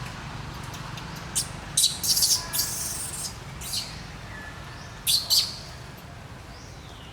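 High chirping calls in several short, loud bursts between about one and a half and five and a half seconds in, then fainter whistled notes falling in pitch near the end, over a steady low hum.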